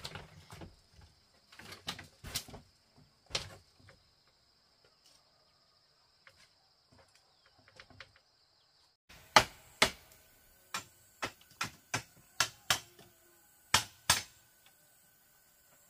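Sharp knocks of a hand tool striking bamboo: scattered at first over a steady high-pitched hum, then, after an abrupt change about nine seconds in, a run of about ten strikes in five seconds.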